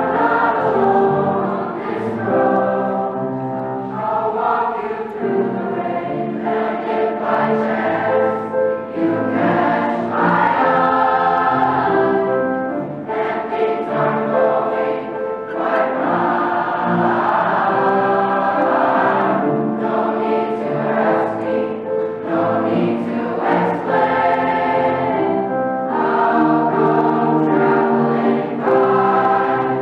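A school choir of boys and girls singing together, with piano accompaniment.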